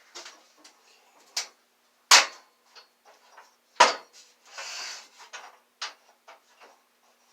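Irregular sharp knocks and clunks of metal parts being handled and set in place on a Shopsmith Mark V during its change-over to drill press mode, the two loudest about two and four seconds in, with a brief scraping rustle just after the second.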